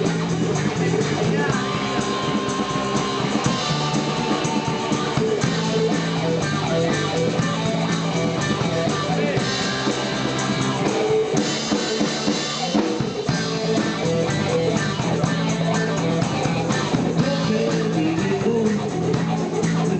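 Blues-rock band playing live, with guitar and a drum kit over a stepping bass line.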